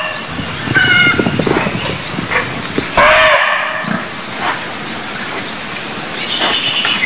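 Barking deer (muntjac) giving one loud, short bark about three seconds in, with softer calls in the first two seconds and another starting near the end. A faint high chirp repeats about twice a second behind it.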